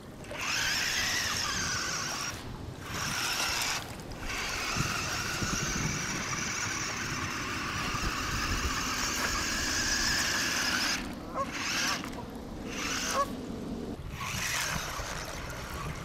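Small electric drive motors and gearboxes of a toy remote-control tracked vehicle whining as it drives, with its tracks rumbling over gravel. The buzzy whine starts about half a second in and cuts out and restarts several times as the throttle is let off and pressed again.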